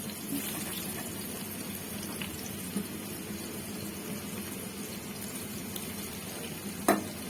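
Sliced onions sizzling in hot oil in a pot, a steady hiss, with a single sharp knock near the end.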